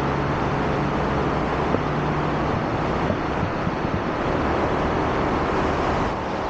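Steady road traffic noise with a motor scooter's engine running close by, a low even hum under a wash of passing cars.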